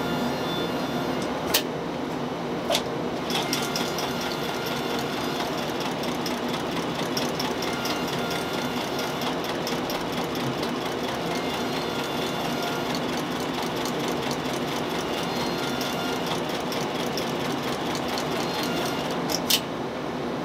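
Industrial shoe stitching machine sewing the midsole of a penny loafer to the upper. It runs as a fast, even patter of needle strokes from about three seconds in until near the end. A few sharp clicks come as it starts and stops.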